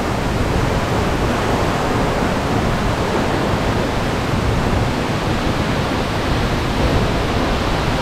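Waterfall rushing steadily close by: an even, unbroken noise with no distinct events.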